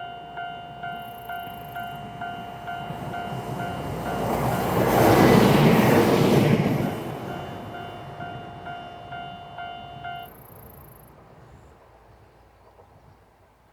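Japanese level-crossing alarm ringing about twice a second while a KTR700 diesel railcar runs over the crossing. The train's rumble swells to its loudest around five to seven seconds in, then fades. The alarm cuts off about ten seconds in.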